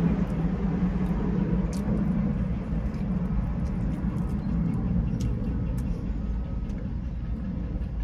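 Eating close to the microphone: a few light, irregular clicks and crunches over a steady low rumble.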